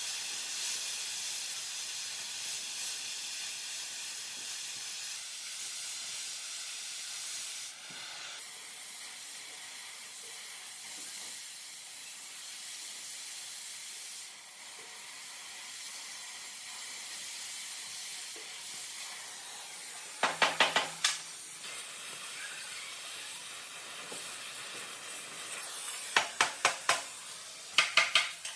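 A steady hiss, loudest in the first few seconds and thinner after about eight seconds. It is broken by quick runs of sharp clicks about twenty seconds in and again near the end.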